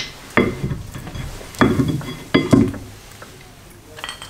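Metal brake caliper being fitted over a rear brake disc: several sharp metallic clinks and knocks with a brief ringing after each, the loudest about half a second, a second and a half, and two and a half seconds in.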